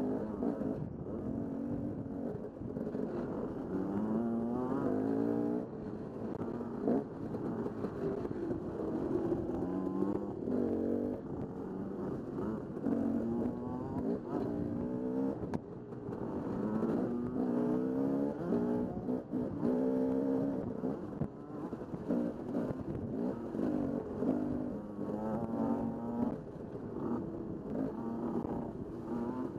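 KTM dirt bike engine under way, its pitch climbing and dropping over and over as the throttle is opened and closed, heard close up from the rider's helmet camera.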